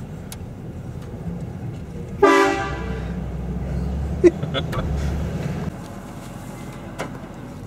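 A truck-mounted train horn gives one short, loud blast about two seconds in, a chord of several tones. The truck's engine rumbles louder for a few seconds after it, and a brief sharp sound comes about two seconds after the blast.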